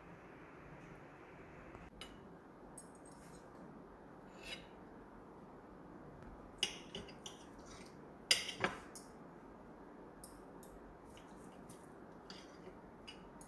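Knife and fork cutting through an egg-and-bread toast on a ceramic plate: scattered clinks and short scrapes of the cutlery on the plate, the loudest a pair of clinks just past the middle. A faint steady hiss lies underneath.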